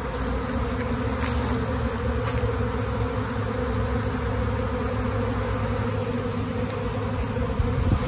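Swarming honey bees, a steady loud hum of many bees flying around the hive boxes as the swarm goes into the box.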